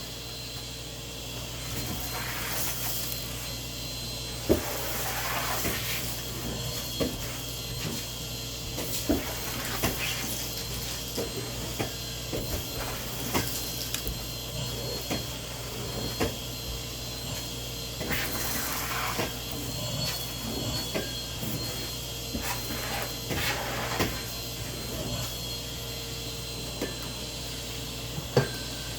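Household objects being handled: scattered knocks and clicks with a few brief rustling swishes, over a steady low hum.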